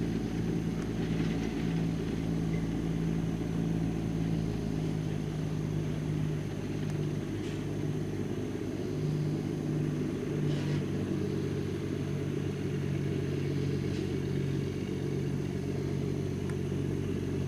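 A vehicle engine running steadily: a low, even drone whose pitch wavers slightly, with a few faint clicks.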